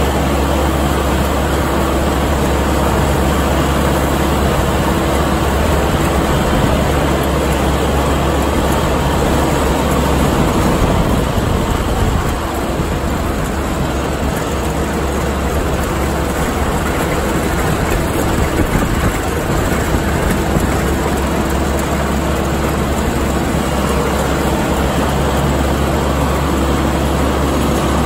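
Kubota MX5200 tractor's diesel engine running steadily while driving a New Holland haybine cutting hay. The low engine hum thins out for a few seconds about halfway through, then settles back.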